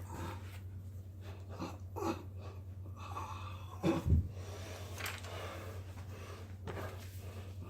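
A man's heavy breathing and puffing exhales during a workout, over a steady low hum, with a dull thump about four seconds in.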